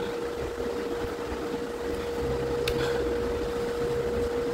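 Steady hum with one constant mid-pitched tone over a low rumble, like a fan or other room appliance running, with a faint tick near the middle.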